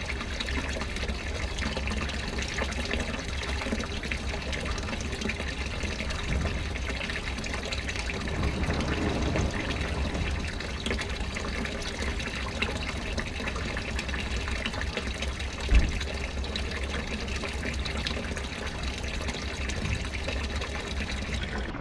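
Steady running water, as water pours or circulates into the tank, over a low hum. One dull thump about three-quarters of the way through.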